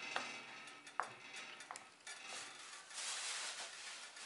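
Wooden spoon stirring a thick tomato sauce with smoked pork bones in an enamelled pot, with a few light knocks of the spoon against the pot in the first two seconds. A brief hiss follows about three seconds in.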